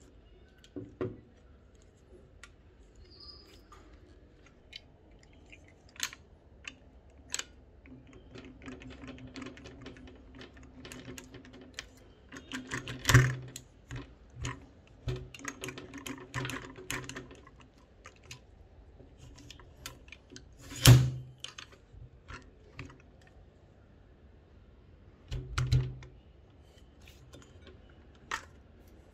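Manfrotto 055 tripod parts handled and fitted together: the centre column and leg joints give scattered plastic and metal clicks and knocks, with a stretch of scraping and rubbing in the middle as the column is worked into its place. Three knocks stand out clearly louder than the rest.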